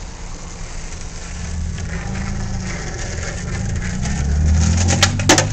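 Skateboard wheels rolling over rough asphalt, a low rumble that grows louder as the board comes closer. It ends in a few sharp clacks near the end, the loudest as the board meets the cement curb.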